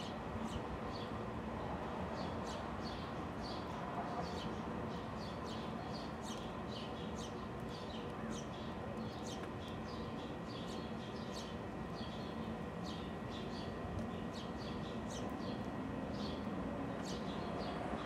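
Small songbirds chirping, short high notes sliding down, about two a second, over a steady low outdoor background rumble.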